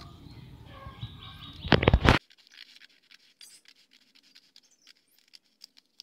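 Scissors snipping through a sheet of paper, a quick run of loud cuts about two seconds in, with birds chirping in the background before it. After that only faint scattered clicks.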